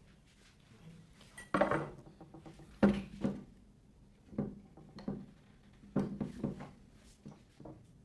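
Handling noise from a metal laboratory retort stand: irregular knocks and clicks as its clamps are adjusted and a laser and a CD holder are fixed onto it.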